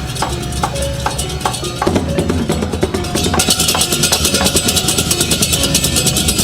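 Music with drums and percussion: short, quick pitched notes over a low beat, with a fast, busy ticking of high percussion that comes in more strongly about halfway through.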